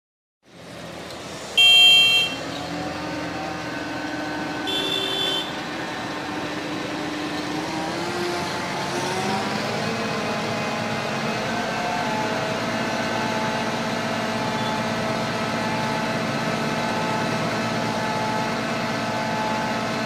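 A mobile crane's engine running steadily, rising in pitch a little after the middle and then holding at the higher speed as the hook is lowered. Two short vehicle-horn blasts sound near the start, and the first is the loudest sound.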